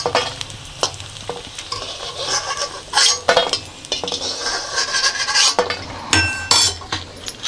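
A metal spoon scraping and clinking against a kadhai while pieces of gond (edible gum) sizzle as they fry in a little ghee. A few ringing metal clinks come about six seconds in.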